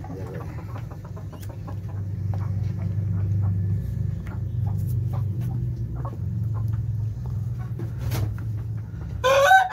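Chickens pecking feed from a plastic feeder tray, many small taps over a steady low hum. Near the end a rooster starts a loud crow.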